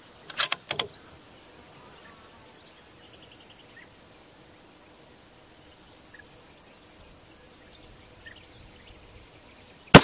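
Faint outdoor background with a few sparse bird chirps, and a few sharp clicks about half a second in. At the very end comes a single loud rifle shot.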